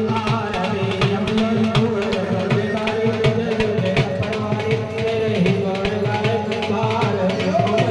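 Devotional aarti music: fast, steady hand-drum beats over a held melody.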